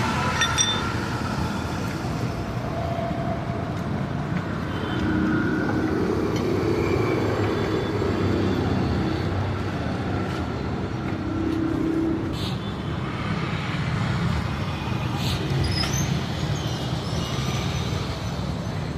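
Steady street traffic noise, with a few sharp clicks and knocks scattered through it.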